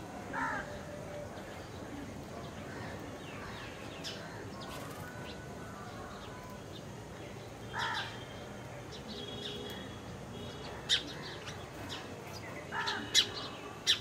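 Birds calling: thin high chirping of small birds such as house sparrows throughout. Three louder, lower calls come about half a second, eight seconds and thirteen seconds in, with a few sharp, short chirps near the end.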